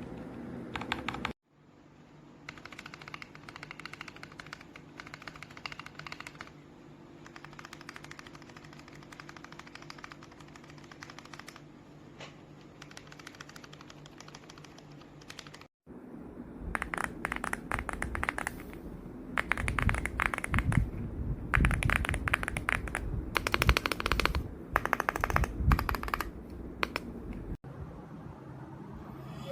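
Typing on a mechanical keyboard fitted with plate-mounted stabilizers, in several cut-together clips: moderate clicking over a steady low hum for the first half, then louder, faster clicking with deeper knocks from about halfway in.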